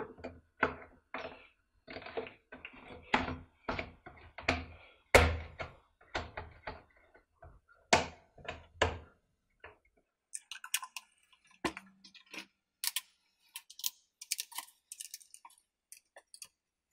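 Plastic recoil starter cover being fitted onto a Stihl 017 chainsaw's housing: a run of knocks and clicks of plastic against the saw body. In the last several seconds these give way to lighter, sparser, higher clicks.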